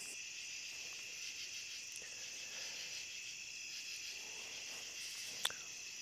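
Steady high chorus of night insects, even and unbroken, with one sharp click near the end.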